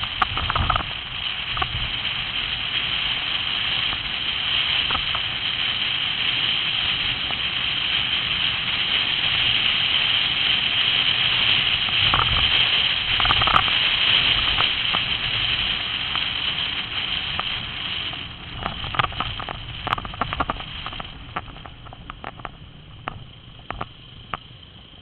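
Steady rushing hiss of wind and road noise from riding through traffic, swelling through the middle and easing off after about eighteen seconds. Scattered short knocks and clicks come near the end.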